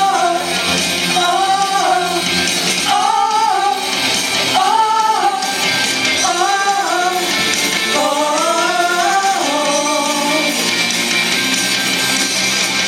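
Music: a song whose melody is sung in short, repeated phrases over instrumental accompaniment.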